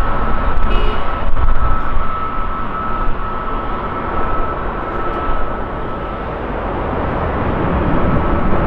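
Airbus A350-900's Rolls-Royce Trent XWB turbofan engines running as the airliner rolls along the runway: a steady jet rush with a high whine through it. It dips a little about halfway and builds again near the end.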